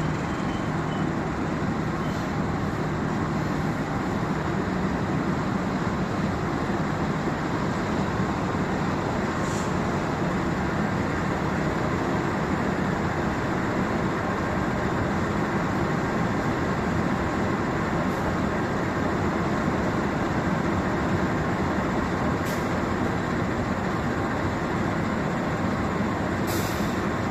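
Train in motion, a steady rolling rumble of railcars on the track, with a few brief high clicks.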